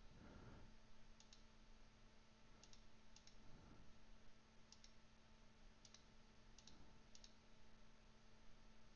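Faint computer mouse clicks, about seven spread over several seconds, each a quick press-and-release pair, over a low steady hum.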